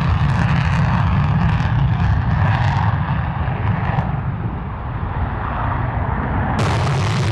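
Military jet engine running with a loud, steady rumble and hiss. The sound changes abruptly near the end.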